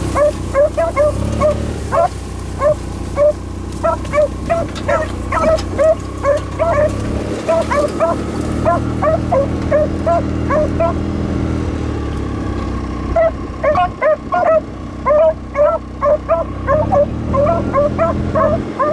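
Beagles baying on a rabbit's scent trail: rapid, repeated short high yelps, near-continuous with a brief lull about two-thirds of the way through. Under them is the steady low hum of a Kubota utility vehicle's engine.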